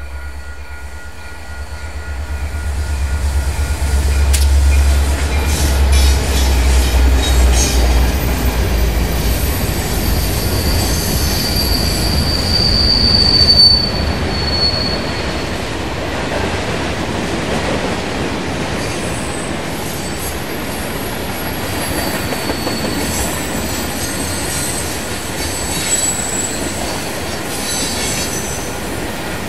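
Diesel-hauled freight train passing: the locomotives' deep engine drone is loudest in the first several seconds, then the cars roll by, wheels squealing high and clicking over the rail joints.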